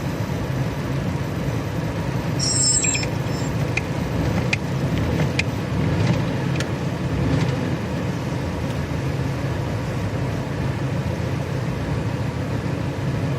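BMW E90's N46B20 four-cylinder petrol engine idling roughly with a misfire, one cylinder not firing; new spark plugs have not cured it, and the owner takes it for a failed ignition coil.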